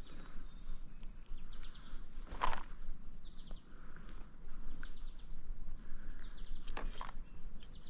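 Steady high-pitched drone of insects over quiet outdoor ambience, with a few brief knocks, one about two and a half seconds in and a pair near the end.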